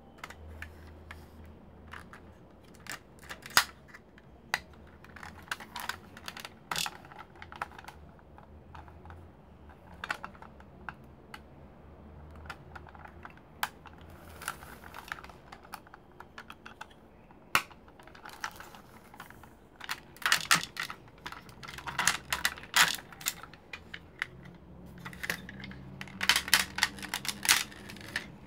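Hard plastic parts of a vintage Powermaster Optimus Prime Transformers toy clicking, knocking and rattling as they are handled, folded and snapped together. Scattered clicks at first, coming thick and fast in the last third.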